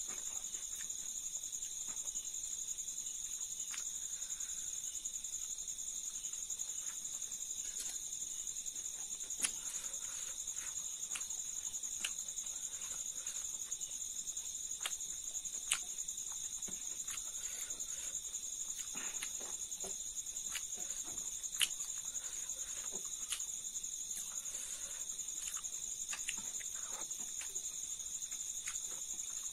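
Steady high-pitched insect chorus, heard throughout. Over it come scattered soft clicks and smacks of eating by hand: fingers mixing rice and chewing fried silkworms, a few sharper clicks standing out.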